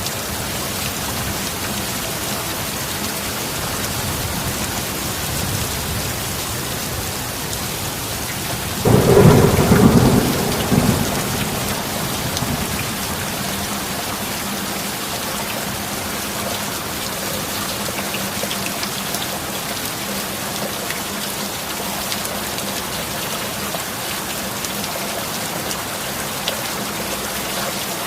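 Steady rain falling, with one clap of thunder about nine seconds in that rumbles for around two seconds before fading back into the rain.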